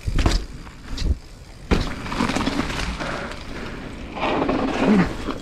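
Hardtail mountain bike ridden over a dirt jump line: a few sharp knocks of the wheels and frame landing and hitting bumps in the first two seconds, then a rush of tyre roll and wind noise on a helmet-mounted microphone.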